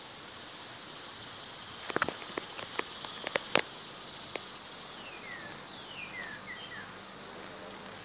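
A steady high, insect-like hiss, typical of a distant chorus of insects, with a cluster of sharp clicks and rustles about two to three and a half seconds in, then a few short falling whistles.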